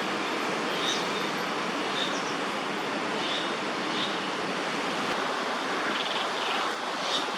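Steady rushing outdoor background noise, with faint short high chirps about once a second.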